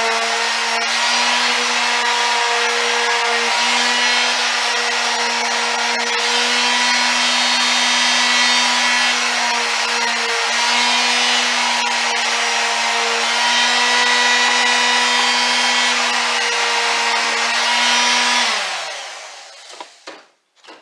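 Handheld electric sander running steadily as it sands a pickleball paddle's handle down to size, the motor's hum mixed with the rasp of sandpaper on the handle. Near the end it is switched off and winds down with a falling pitch, then a few light knocks as it is set down.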